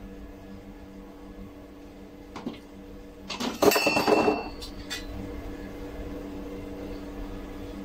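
Metal bracket clattering and clinking for about a second near the middle, a few sharp knocks with a short ringing tone, as the black metal floating-shelf bracket is taken off the wall and put down. A steady low hum lies underneath.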